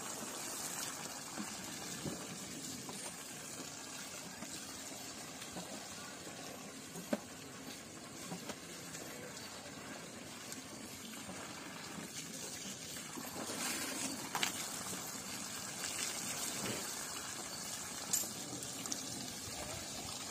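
Water running and splashing steadily while an elephant is washed, with a few short sharp knocks.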